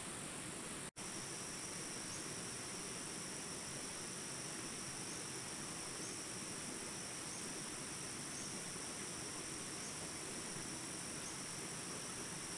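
Small jungle rapids rushing steadily under a continuous high-pitched drone of insects. The sound cuts out for a split second about a second in.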